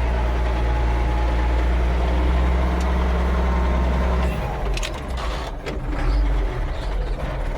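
Ford 9700 tractor's six-cylinder diesel engine pulling steadily. A little over four seconds in its note drops and changes, with a few clicks, as it is shifted up a gear, then it runs on at a new steady note.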